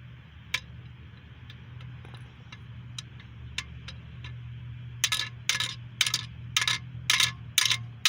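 Hammer blows on a camshaft bearing removal tool, driving out a cam bearing in a small block Chevy 350 block: a few light taps, then about seven sharp metallic strikes roughly two a second in the second half, over a steady low hum.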